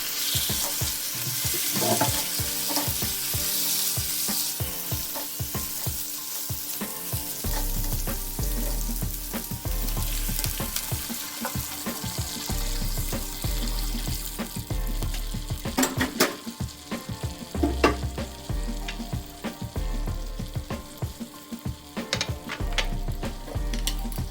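Food sizzling in a frying pan as it is stirred, the hiss strongest over the first few seconds, with a few sharp knocks of a utensil against the pan. Background music with a low pulsing beat comes in about a third of the way through.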